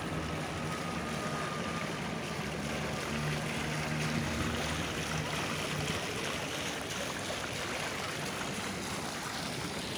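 Outdoor street ambience: a steady rushing noise, with a low hum about three to six seconds in.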